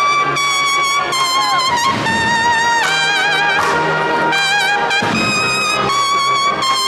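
A Spanish cornet-and-drum band's cornetas (valveless bugles) playing a Holy Week processional march in unison, the melody moving in held notes with a wavering vibrato.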